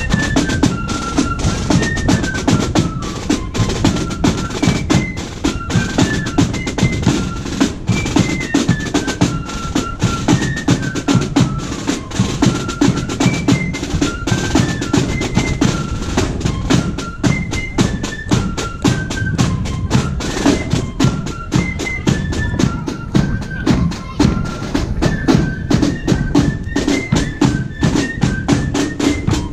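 Marching band playing: snare and bass drums beat out a brisk rhythm under a high, simple tune of separate notes.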